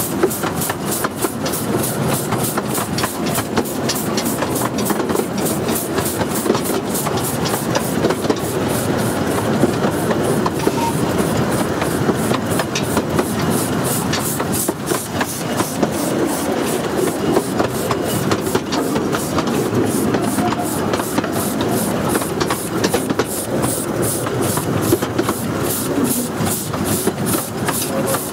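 A 15-inch gauge miniature steam train running, heard from the carriage right behind the locomotive: a steady rumble of wheels on rail with a rapid, even beat of about four a second and some steam hissing.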